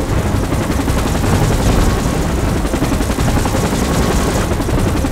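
Helicopter rotor chopping in a steady, rapid beat over a heavy low rumble.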